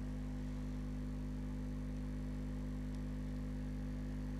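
JL Audio 10W7 subwoofer playing a steady 50 Hz test tone at low power, an even low hum with a ladder of overtones above it.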